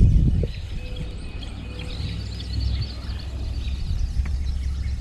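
Many small birds chirping over a steady low rumble, loudest about the first half second.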